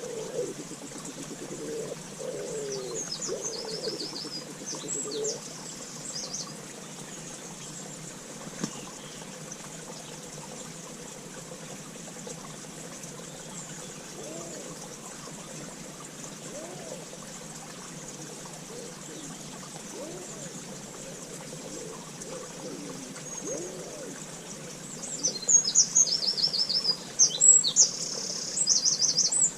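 Garden birdsong: a small bird sings high, trilled phrases, once a few seconds in and again, louder, near the end, over a steady background hiss.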